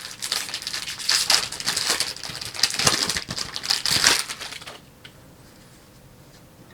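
Foil wrapper of a baseball card pack being torn open and crinkled by hand, a run of crackly rustling that stops about five seconds in.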